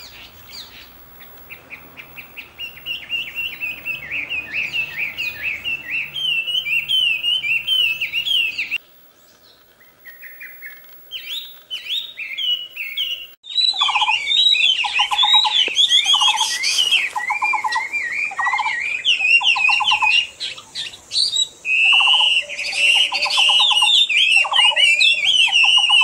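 Chinese hwamei (melodious laughing thrush) singing a long run of rapid, varied whistled phrases. The song breaks off about nine seconds in and returns louder a few seconds later, now with a lower trilled note repeating about once a second behind it.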